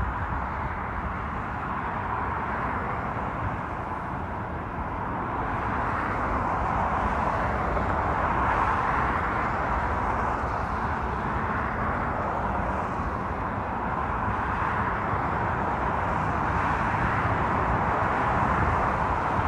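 Jet airliner engine noise on landing approach: a steady rush with a low rumble underneath, growing a little louder from about six seconds in.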